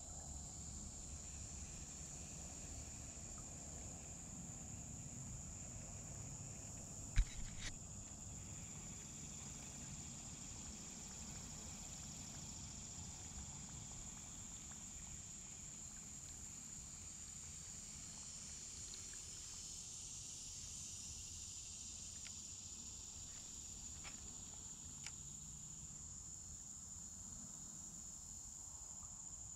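Steady high-pitched chorus of insects, with a low background rumble. About seven seconds in there is a sharp knock followed by two lighter taps, and another faint tap comes near the end.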